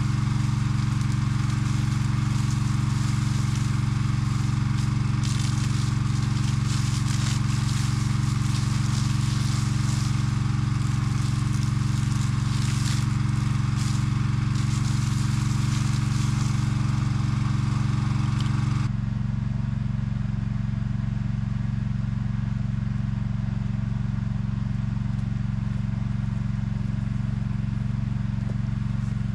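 An engine runs steadily at constant speed, pumping water from a tracked firefighting carrier out through a fire hose, with the hiss of the hose jet spraying into a tree. The spray hiss stops suddenly about two-thirds of the way through, and the engine carries on alone, a little quieter.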